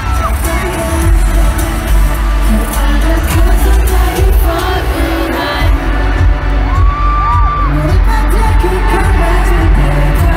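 Live pop music from an arena concert: loud, bass-heavy backing track with singing. The audience screams and cheers over it.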